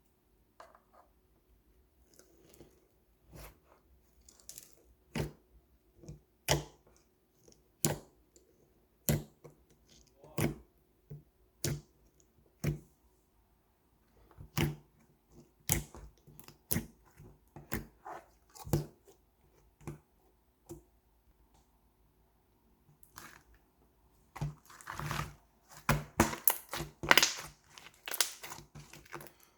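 Slime being squeezed and poked by hand, making sharp sticky pops and clicks about once a second, then a quick, dense run of crackling pops near the end.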